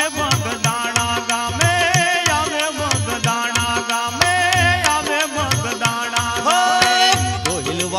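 Gujarati devotional folk music, an instrumental passage: a melody instrument plays a wavering, ornamented tune over a steady drum rhythm, with many small metallic clicks like hand cymbals.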